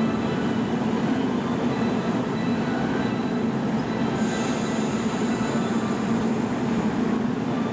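JR 115-series eight-car electric train running at the platform, a steady rumble with faint thin high squeals from the wheels. A high hiss joins in about four seconds in.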